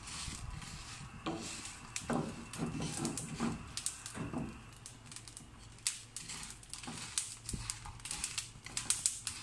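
A wooden spatula stirs whole dried red chillies and cumin seeds while they dry-roast in a frying pan. The dry pods and seeds rattle and scrape against the pan in irregular clicks, thicker in the second half.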